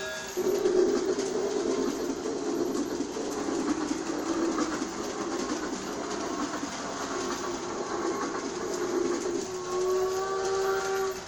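G-scale toy steam train running on its track with a steady rumbling clatter, then a whistle sounds and holds near the end.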